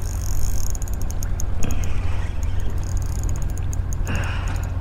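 Spinning reel being cranked to bring in a hooked flounder, a fast run of fine clicks from the reel, over a steady low rumble. Two short rushing noises come about a second and a half in and again near the end.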